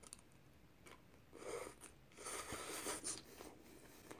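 Faint chewing and mouth sounds of a person eating a forkful of food, in two short stretches about a second and a half and two and a half seconds in.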